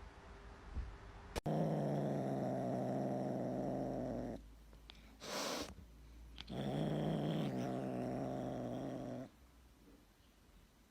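A cat making a long, low, steady sound twice, each lasting about three seconds. Between them comes a short breathy, hissing noise.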